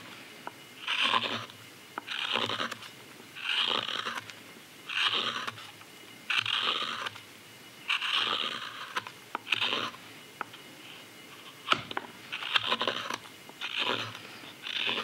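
Hook knife slicing curls from the inside of a green sycamore cup, a scraping cut about every second and a half, with one sharp tick a little before the end.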